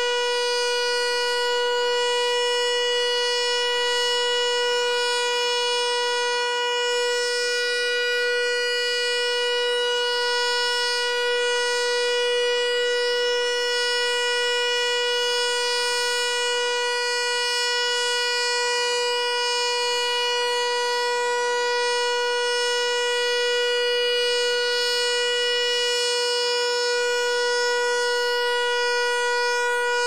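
American Signal T-112 electromechanical outdoor warning siren sounding a steady alert tone, holding one pitch with a long string of overtones.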